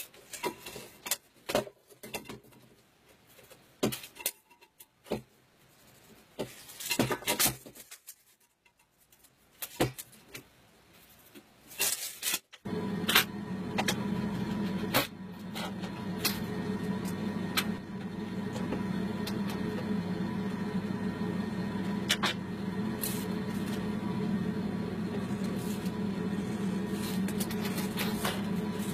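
Scattered clicks and taps of a tape measure and small hand tools being handled. About a third of the way in, a steady hum starts suddenly and carries on under more clicks.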